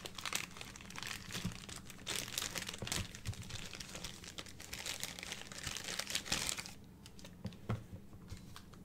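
Plastic poly mailer bag crinkling and rustling as it is handled and pulled open, stopping about three-quarters of the way through. A few light knocks follow near the end.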